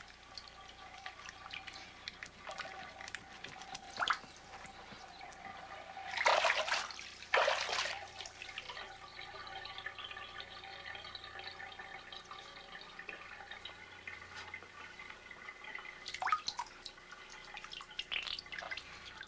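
Bathwater dripping and sloshing in a tub, with scattered small drips and two louder splashes about six and seven and a half seconds in.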